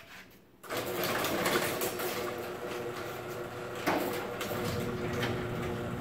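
Garage door opener starting about half a second in and running steadily as it drives the sectional door down, with a few light knocks along the way. The door now closes because the safety sensors have been realigned to face each other.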